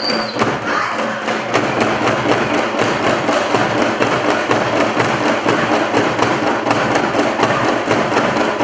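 Hand drums beating a fast, driving rhythm for a traditional Mozambican dance, with the thuds of dancers stamping on a wooden stage mixed in. The strikes come thick and even, with no pause.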